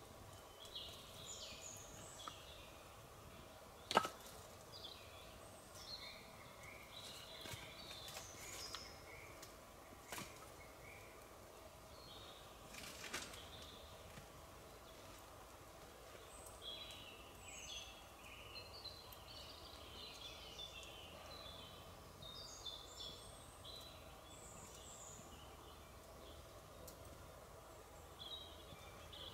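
Quiet forest ambience with small birds chirping and twittering on and off. A single sharp snap about four seconds in, and a few fainter clicks later.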